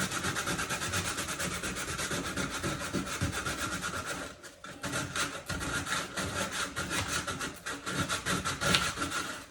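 Folded 100-grit sandpaper rubbed by hand along the edge of foam core board, in quick back-and-forth strokes with a short pause about four seconds in.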